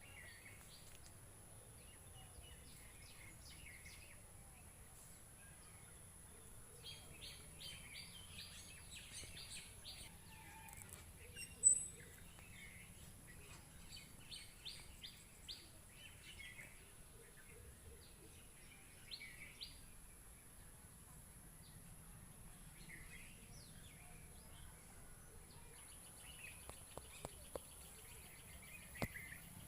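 Songbirds chirping faintly outdoors, with runs of short, quickly repeated notes, over a low background rumble. A single sharp click comes a little before halfway.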